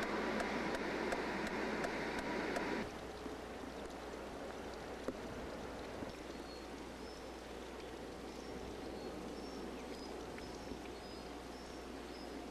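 Steady trickle of water from a stone sculpture fountain into its shallow basin, with faint, short high chirps scattered through it. For the first three seconds a louder rush of outdoor noise with an even ticking, about three ticks a second, covers it, and it cuts off abruptly.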